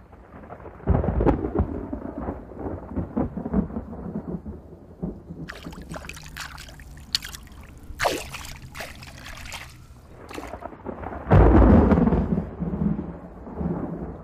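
Thunder rumbling and crackling, with a heavy roll about a second in and a louder one near the end, and a stretch of sharp crackling in the middle.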